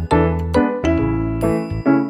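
Background music: a bright, chiming melody over a steady bass.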